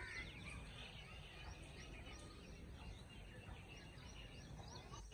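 Faint outdoor ambience: birds chirping over a low steady rumble.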